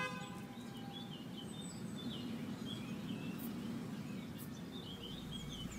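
Small birds chirping again and again over a steady low hum of outdoor street ambience.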